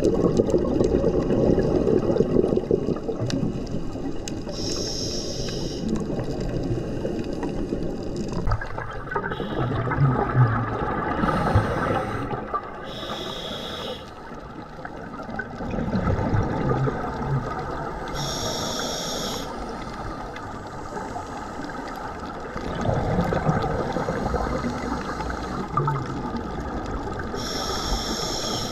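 Scuba diver breathing through a regulator underwater: short hissing inhales alternate with rumbling bursts of exhaled bubbles, about every six or seven seconds.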